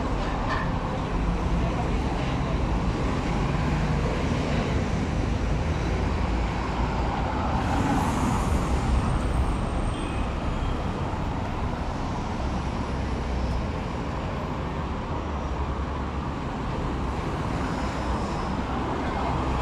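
Steady city street traffic: the continuous noise of cars and other vehicles running along a busy avenue, heavy in the low end.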